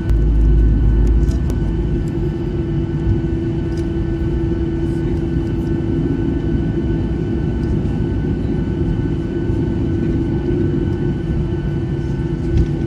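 Inside the cabin of a Skymark Boeing 737-800 taxiing after landing: the jet engines' steady hum and whine, with a low rumble in the first second or so.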